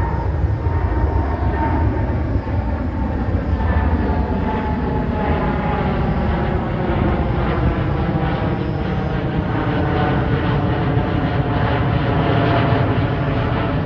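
United Boeing 787-9 Dreamliner's twin GEnx turbofan engines at climb thrust as it passes overhead after takeoff. Steady jet noise with a deep rumble and several whining tones that slowly fall in pitch as the plane moves away.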